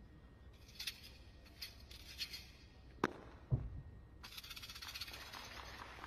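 Sounds of a wushu spear routine on the competition carpet: a few light ticks and swishes, a sharp crack about three seconds in, and a heavy thump half a second later. After that comes a rustling hiss with fast fine ticks.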